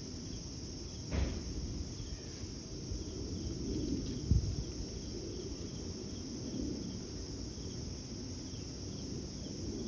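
Insects, likely crickets, chirring steadily in a high band, with faint repeated chirps over a low rumble. Two soft thumps stand out, about a second in and about four seconds in.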